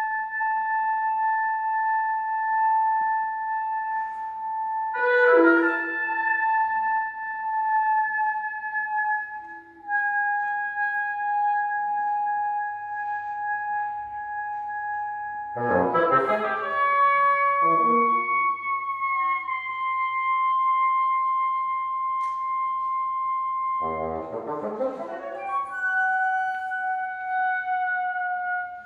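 Wind sextet of flute, oboe, French horn, saxophone, bassoon and clarinet playing contemporary chamber music. Long held high notes shift pitch only a little and are broken three times by brief, dense flurries of many notes at once.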